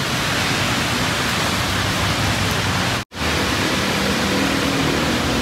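Heavy rain on a car's roof and windscreen, heard from inside the car as a steady dense hiss, with a brief drop-out about three seconds in.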